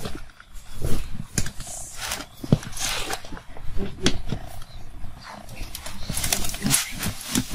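Plastic bucket lid being pried up at its edge with a metal tool, giving irregular creaks, clicks and scraping knocks.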